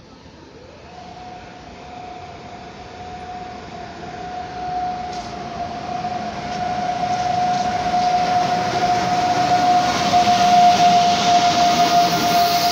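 PKP Intercity EU44 Husarz and EU160 Griffin electric locomotives hauling a passenger train along the platform. A steady high whine from the approaching locomotives glides up in pitch in the first second, then holds. The rumble of the train grows steadily louder as it draws alongside.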